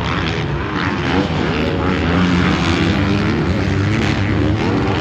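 Several 450cc four-stroke motocross bikes racing, their engines revving up and falling back in overlapping, shifting pitches.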